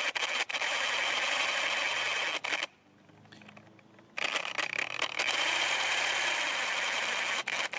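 A 3D-printed RC car's electric drivetrain whirring steadily with a gritty hiss as it labours up a slope, with a few light clicks. It stops for about a second and a half near the middle, then starts again.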